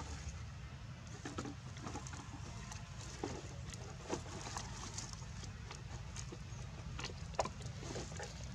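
Scattered light crackles and clicks from macaques moving and handling dry leaves and plastic, over a steady low rumble.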